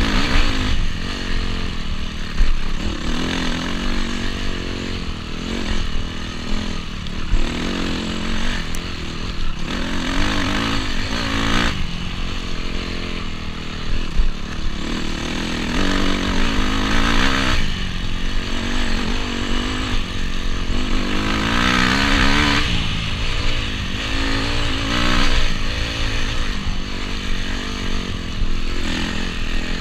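Honda CRF250R's single-cylinder four-stroke engine running under load on a dirt-bike trail ride, its pitch rising and falling again and again as the throttle is worked.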